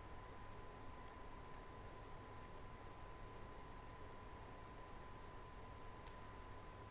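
Faint computer mouse clicks, a few spaced press-and-release pairs, over a quiet background with a faint steady high tone.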